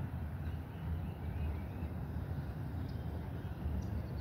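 Electric trolling motor pushing a small boat at low speed: a steady low hum and rumble with water noise, and a few faint ticks near the end.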